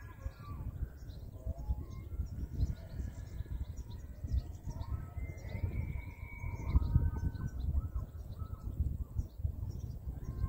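Wapiti (elk) bugling: a series of high, whistling calls, one held steady for over a second about five seconds in. Wind rumbles on the microphone throughout.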